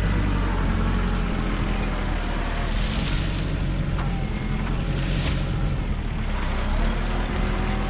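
A petrol engine running steadily at one constant speed, with two brief hissy swishes about three and five seconds in.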